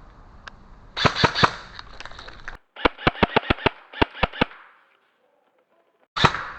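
Airsoft guns firing in quick bursts of sharp snapping shots: about four shots around a second in, then about nine shots in quick succession, and a single shot near the end, with the sound cutting off suddenly between bursts.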